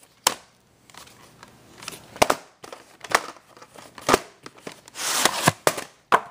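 Sharp plastic clicks and snaps, about six spread over several seconds, with a short rustle near the end, from a VHS tape and its case being handled and opened.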